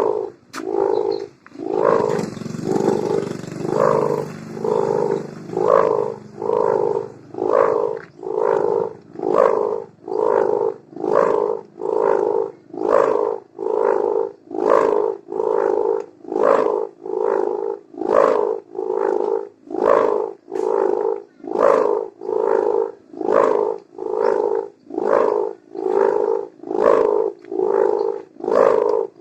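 A kite hummer (sendaren) made of mika plastic film joined to gift ribbon, vibrating as it is tested: a loud buzzing, snoring-like drone that swells and fades about once a second. A low rumble lies under it for a few seconds near the start.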